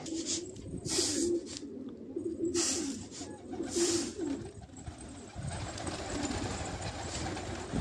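Domestic pigeons cooing over and over, with several short loud flurries of wing-flapping as birds come down onto the loft; in the last couple of seconds a steady rushing noise builds under the cooing.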